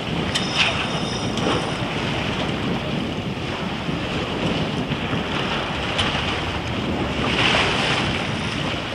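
Steady wind buffeting the microphone over choppy water, with the wash of small waves around the boat.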